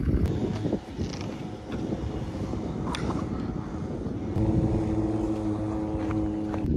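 A vehicle engine running under a low rumble. About four and a half seconds in, a steady engine hum comes up and holds.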